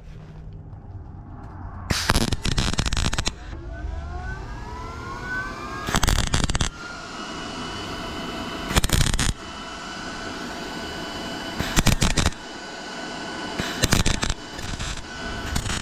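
MIG wire-feed welder laying short stitch welds on sheet steel: about six bursts of sputtering, crackling arc, each a second or less, a few seconds apart. A faint machine whine rises in pitch between the first and second welds.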